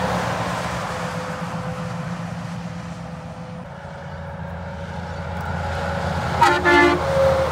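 Heavy trucks running past on a motorway, their engine and tyre noise fading and then building again. About six and a half seconds in, a truck's air horn sounds one short blast of about half a second.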